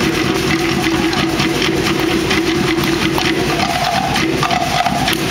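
Fast, even drumming played live to accompany a Polynesian fire-knife dance, with a steady held tone underneath that steps up in pitch about three and a half seconds in.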